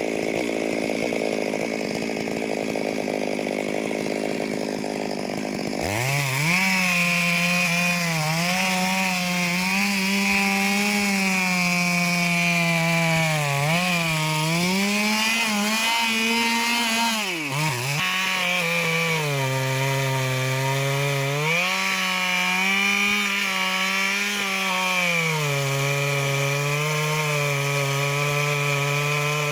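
Two-stroke chainsaw cutting into a large aanjili (wild jack) trunk. The engine speed sags and recovers again and again under load, with an abrupt change in the sound about six seconds in.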